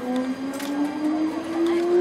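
JR Shikoku 8600 series electric train's traction motors whining as the train accelerates, one steady tone rising smoothly in pitch.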